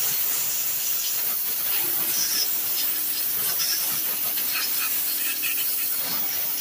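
Compressed air hissing steadily from an air compressor's blow gun, blowing dirt off a two-stroke trimmer engine.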